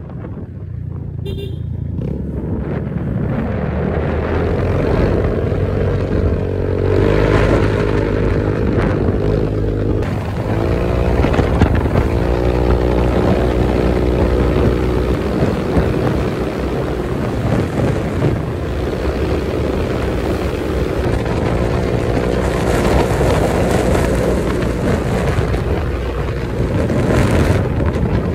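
Honda PCX 150 scooter's single-cylinder engine running while riding, with wind rushing over the microphone. The engine note rises as it speeds up about seven seconds in and again about ten seconds in.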